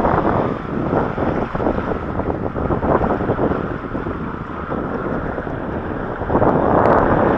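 Water rushing and splashing around a rider sliding down a waterslide, with wind buffeting the microphone and many small knocks and bumps. The rush swells louder about six seconds in.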